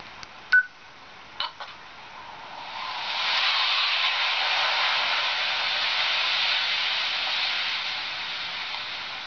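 A steady rushing hiss swells up about three seconds in, holds, then slowly fades. Before it come a sharp click with a short beep about half a second in and two fainter clicks soon after.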